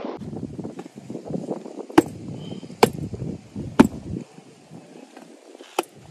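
Sharp knocks from a hand-held steel hole-marking frame with a pipe handle as it is pressed into tilled soil: three about a second apart, then one more near the end. Wind rumbles on the microphone underneath.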